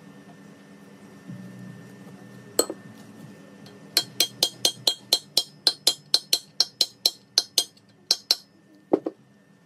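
Light metal-on-metal hammer taps with a bright ringing clink. A single tap comes first, then a quick run of about five taps a second for some four seconds, and one last tap near the end.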